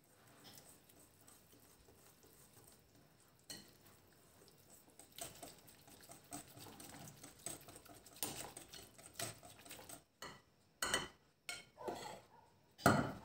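Wire whisk stirring thick kefir pancake batter in a bowl, scraping and ticking against the sides. Near the end a metal spoon knocks sharply against the bowls three times as flour is added, the last knock the loudest.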